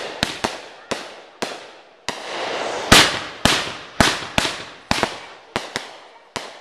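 Fireworks going off: more than a dozen sharp bangs at an irregular pace, each trailing off with a ringing echo. About two seconds in, a hissing rush lasts most of a second and ends in the loudest bang.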